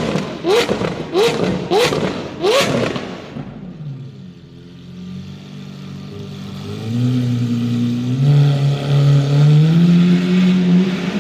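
Lamborghini Aventador SV's V12 revved in quick blips, about one every two-thirds of a second, each ending in a loud crack from the exhaust. After about three seconds the revving stops and the engine falls back. From about seven seconds in it pulls away, its note climbing steadily and growing louder.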